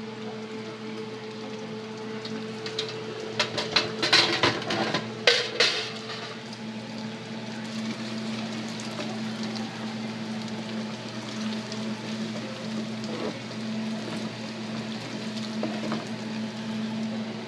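Bacon frying in a pot of hot oil, a steady sizzle as it is stirred with a wooden spatula, over a steady low hum. A burst of clattering knocks comes about four to six seconds in and is the loudest part.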